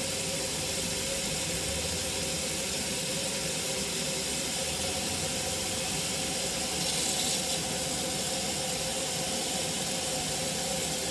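Kitchen tap running steadily into a stainless steel sink, the stream splashing through lathered hair as it is rinsed and worked by hand, with a faint steady tone under the rush.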